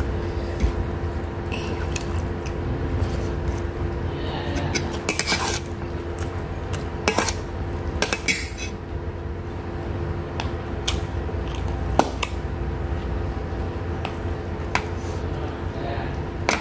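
Scattered light clinks and clicks of a spoon and plate during a meal, over a steady low hum.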